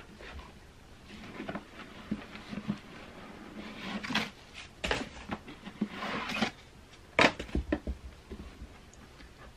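Rustling and knocking as a pair of stiff, plastic-feeling knee-high heeled boots is lifted, handled and pulled on, with scattered soft knocks and one sharp knock about seven seconds in.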